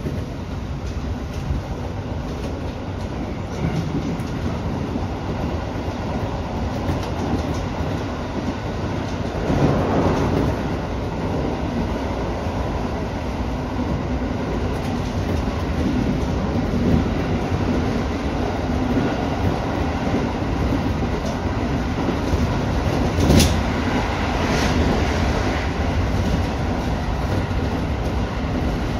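Tobu Urban Park Line express train running at speed, heard from inside the front car: a steady rumble of wheels on rail that swells about ten seconds in, with a sharp clack a little past twenty seconds.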